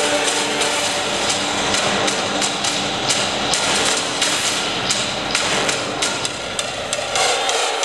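Loud music accompanying the routine, in a noisy, percussive passage: irregular sharp hits over a dense wash of sound, with the steady held tones of the previous section largely dropped out.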